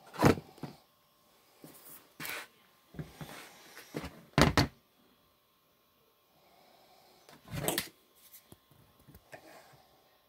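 A few short knocks and clunks of hard objects being handled, four of them louder, about two seconds apart, with lighter clicks between.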